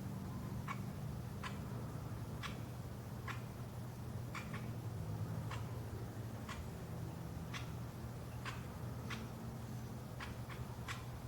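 Crimson-crested woodpecker making a series of short, sharp clicks, roughly one a second, some in quick pairs, over a low steady hum.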